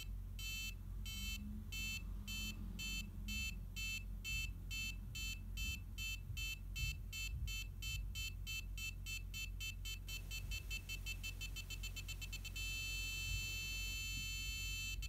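Buzzer of an MSP430 ultrasonic parking sensor beeping, about three beeps a second at first and speeding up as an object comes closer to the sensor. The beeps merge into one steady tone about 12 seconds in, when the object is about 5 cm away, and break back into beeps near the end. A low steady hum sits underneath.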